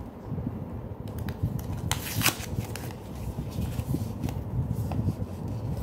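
Handling noise from a plastic handheld gimbal being turned over in the hand and set down: a few light clicks, then a short cluster of rattling clicks and rustle about two seconds in, over a steady low background rumble.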